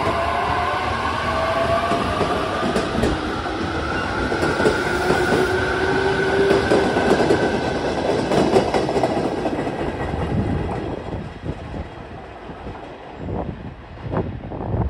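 JR Kyushu 817-series electric train pulling out and accelerating past. Its motors whine in several tones that climb steadily in pitch, over the rumble and clack of the wheels on the rails. The sound fades after about ten seconds as the last car leaves, with a few scattered clacks near the end.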